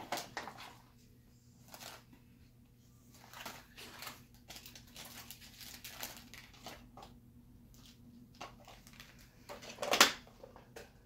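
Toy packaging being handled and unwrapped: intermittent rustling and crinkling of plastic and paper wrappers, with one louder crackle about ten seconds in.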